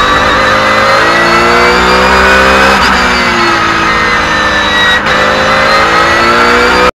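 Porsche 911 GT3 Cup race car's flat-six engine heard from inside the cockpit, running hard under acceleration: the pitch climbs, drops sharply twice as the gears shift up, and climbs again. The sound cuts off suddenly near the end.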